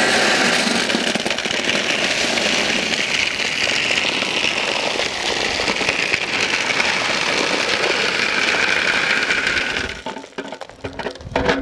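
Thousands of clams poured from a metal pot into a wide metal basin, their shells clattering against the metal and each other in a dense, steady rush. The pour stops about ten seconds in, leaving a few scattered clicks.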